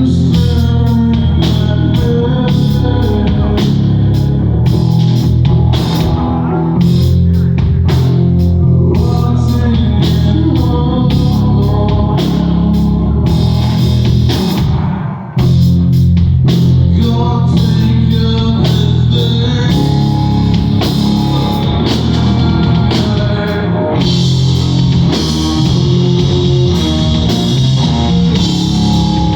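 Live rock band playing loudly: drum kit, bass and electric guitar together, with a brief drop about halfway through before the full band comes back in.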